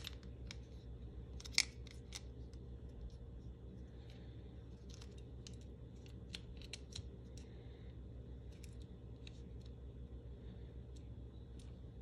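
Scattered small clicks and taps of plastic and metal as a coin-cell battery is handled and slid into the back of a Honda keyless remote fob, with one sharper click about one and a half seconds in.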